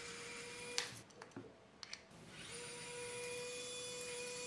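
Electric precision screwdriver whining in two runs, a short one at the start and a longer one of about three seconds, with a few light clicks in between, as it undoes screws on the 3D printer's extruder parts.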